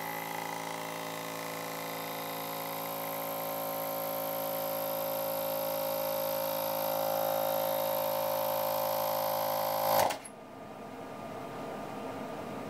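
Clarke 1.5-gallon air compressor's piston pump running with a steady hum, growing slowly louder as the tank fills, then cut off suddenly about ten seconds in. A faint hiss follows: air leaking out through the oil-fill cap vent, which the owner takes for worn piston rings.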